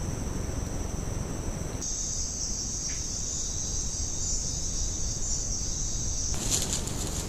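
Crickets trilling in a steady, high, even drone over a low rumble. The trill jumps louder about two seconds in and drops back abruptly about six seconds in.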